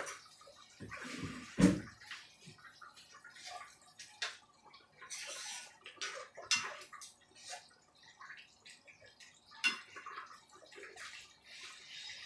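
A spoon stirring and scraping in a wide pan of chicken curry soup, with light scattered clicks and faint liquid sloshing, and one louder knock about a second and a half in.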